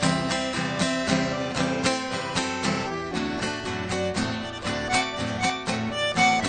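Instrumental break of a sertanejo (Brazilian country) song: plucked acoustic guitar picks a quick melody over a steady accompaniment, with no singing.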